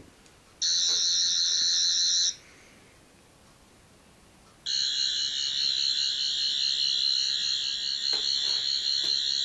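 Doctor Who sonic screwdriver toy sounding its high-pitched, warbling electronic whine: a short burst of under two seconds about half a second in, then a longer one starting about halfway through and still going at the end.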